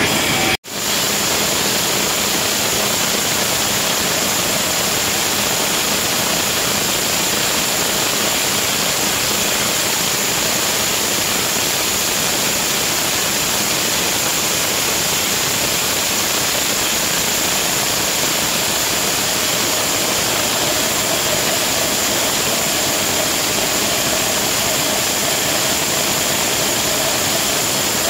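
Steady din of aluminium can production-line machinery: an even rushing noise with a thin high whine over it. The sound cuts out for an instant about half a second in.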